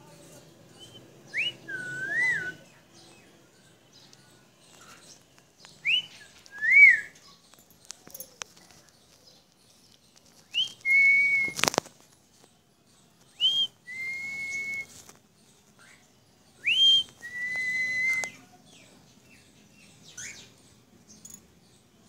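A two-part whistle repeated five times a few seconds apart: a quick upward sweep, then a lower note, arched in the first two and held steady in the later ones. There is one sharp click about two thirds of the way through.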